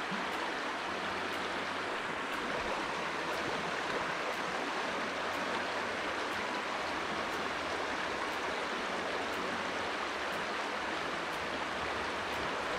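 River water running steadily, an even rushing with no breaks.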